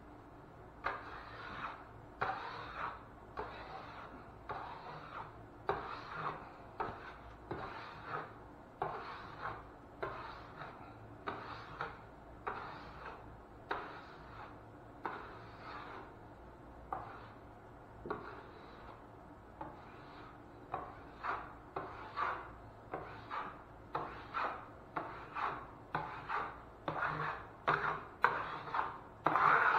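Drywall knife scraping across a joint-compound patch in short repeated strokes, about one or two a second, coming faster and louder near the end: smoothing and feathering the patch.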